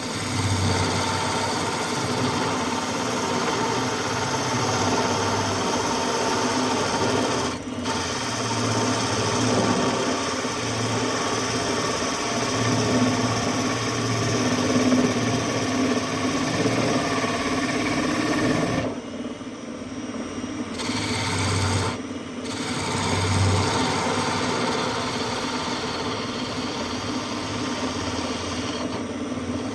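Wood lathe running while a turning tool cuts a small workpiece: a continuous scraping hiss over the steady hum of the motor. The cutting noise drops away briefly twice, about two-thirds of the way in.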